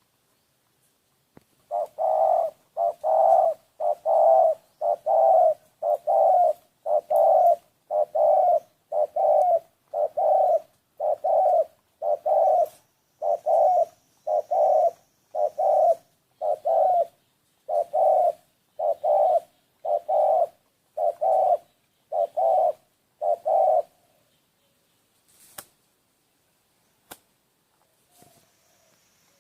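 A bird's cooing call, dove-like, repeated about once a second some twenty times, then stopping; a few faint clicks follow near the end.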